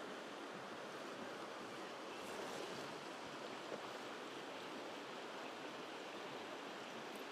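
Shallow, stony river flowing over rocks and riffles: a steady, even rush of water, fairly quiet.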